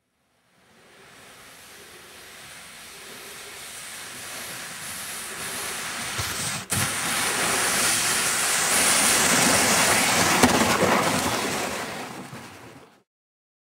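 Plastic kayak sliding down a snowy hill as a sled, its hull hissing over the snow: a rushing noise that grows steadily louder for about ten seconds, breaks off briefly about halfway, then fades away.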